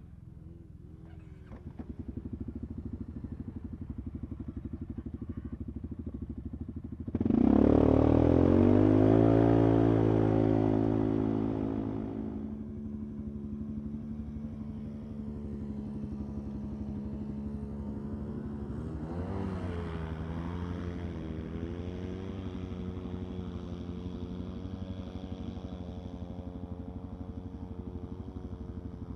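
Polaris ATV and RZR engines running. One engine revs hard about seven seconds in, rising in pitch and loud for about five seconds before easing off, and revs again briefly around twenty seconds, as the machines push through a mud hole.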